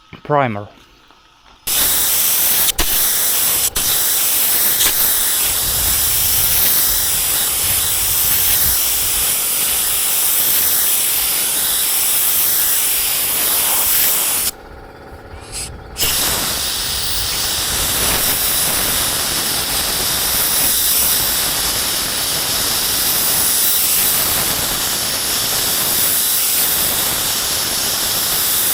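Paint spray gun spraying primer: a loud, steady hiss that starts about two seconds in, stops for about a second and a half near the middle, then starts again.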